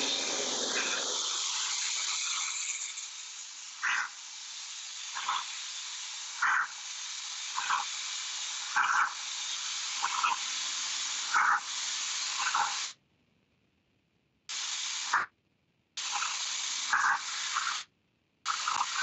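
Karcher Follow Me 1800 PSI electric pressure washer blasting a paving stone: a steady hiss of the high-pressure water jet, heard thin through a Skype video call, with short louder pulses about once a second. A little past two-thirds of the way through the hiss cuts out, then comes back in three short bursts.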